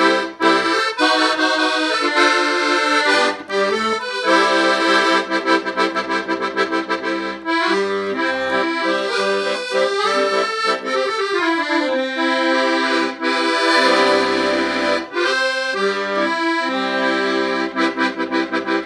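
Accordion playing a tune, with held chords under runs of notes and a falling run of notes about halfway through.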